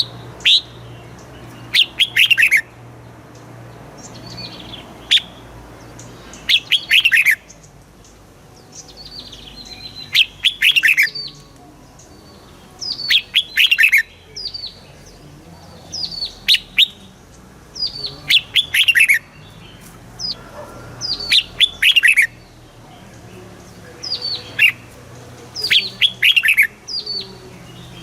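Red-whiskered bulbul singing: short, bright phrases of quick falling whistled notes, repeated every two to three seconds.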